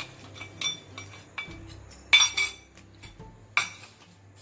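Metal spoon clinking against a metal kadhai a few times, with short ringing strikes; the loudest comes about two seconds in. Sugar is being added to a simmering raw-mango murabba and worked in with the spoon.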